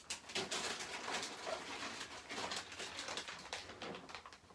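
Irregular rustling, tapping and small clicks of craft supplies being handled while a new Seal Plus adhesive tape runner is fetched.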